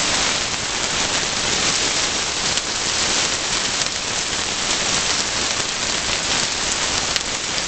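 Pork shank chops frying in a hot, lightly oiled nonstick pan over medium-high heat: a steady, dense sizzle with small crackling pops.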